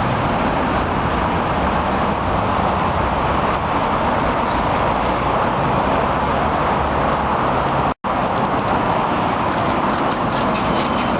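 Steady noise of busy city street traffic. It cuts out completely for an instant about eight seconds in.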